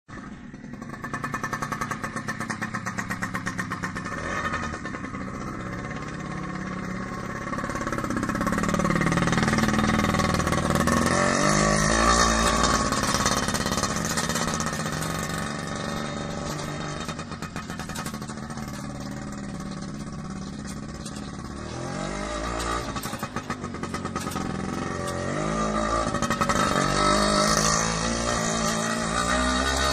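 Small engine of a replica Cushman M53 motor scooter running as it is ridden, the engine note rising and falling as it speeds up and slows. It is loudest about ten seconds in and again near the end.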